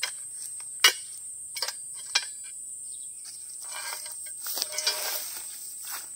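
Steady high-pitched buzz of insects, with a few sharp knocks and clatters, the loudest about a second in, and a rustling scrape between about four and five and a half seconds in.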